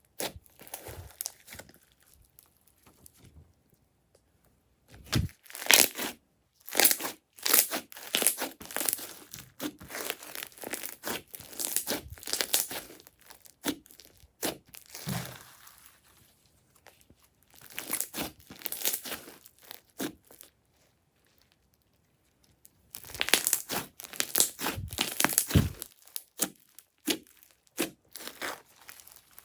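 Crunchy slime being squeezed and pressed by hand, crackling in bursts of dense little crunches with short pauses between handfuls.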